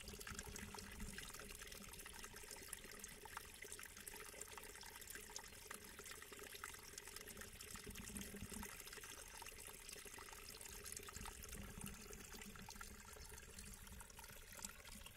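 Faint trickling of shallow water, an even hiss scattered with fine little ticks, over a low rumble.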